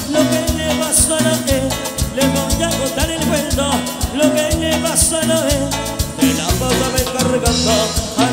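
A live Latin dance band playing an instrumental passage between sung verses, with a steady, even dance beat under bass and melody lines.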